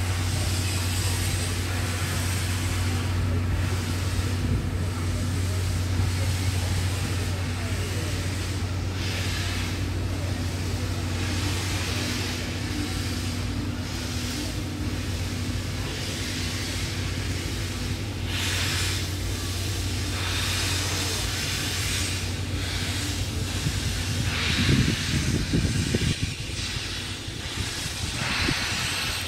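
Steam locomotive No. 8630 (8620 class) hissing and puffing steam as it moves off with a rake of 12-series passenger coaches, over a steady low engine drone. The hissing comes in bursts in the later part, loudest near the end.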